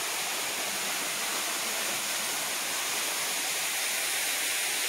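A steady, even rushing hiss, strongest in the high range, with no breaks or changes in level.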